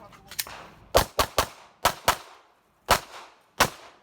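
Pistol fired rapidly during a practical shooting stage: about seven sharp shots in quick pairs and triples with short gaps between groups, each trailing a brief echo.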